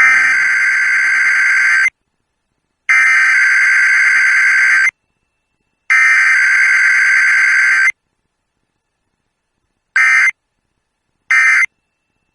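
EAS SAME digital data bursts from a NOAA Weather Radio Required Weekly Test: three harsh, buzzing bursts of about two seconds each, a second apart, carrying the coded header. Near the end come two short bursts, the start of the end-of-message code.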